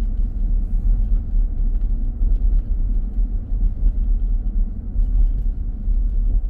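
Steady low rumble of car road noise on a wet road.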